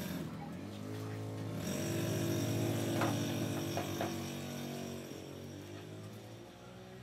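Background music of slow, held chords, with a few faint clicks of handling about three to four seconds in.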